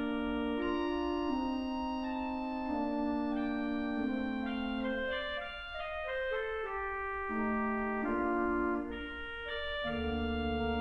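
Church pipe organ, the 1858 Åkerman & Setterquist / 1986 Thür instrument, playing a slow andante: soft sustained chords moving from one to the next, with a deep pedal bass coming in near the end.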